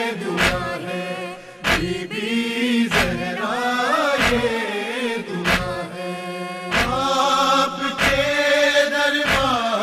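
Urdu devotional lament (noha) sung by a single voice with held, ornamented notes, over a deep beat that falls about every one and a quarter seconds.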